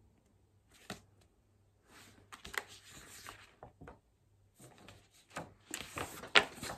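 Pages of a hardcover book rustling and flapping as they are flipped through by hand, with a light tap about a second in and a sharper knock near the end as the book is handled.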